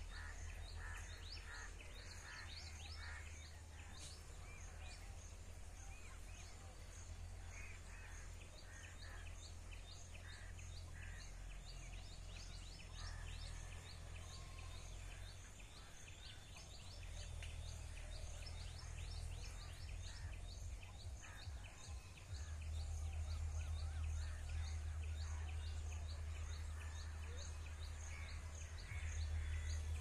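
Birds chirping and calling repeatedly over a steady low rumble. The rumble grows louder about two-thirds of the way through.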